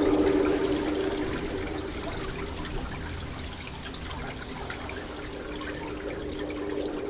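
Rain falling: a steady watery hiss with many small scattered drop patters. A low steady hum fades away over the first two seconds and comes back faintly near the end.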